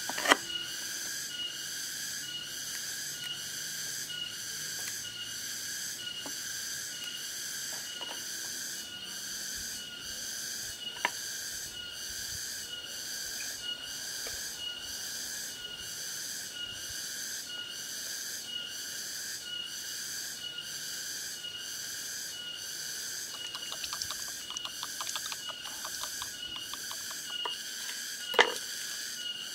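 A steady, pulsing chorus of high-pitched insect calls. Over it, a few sharp knocks of a knife on a wooden cutting board, the loudest near the start and near the end, and a flurry of quick light chops a little before the end.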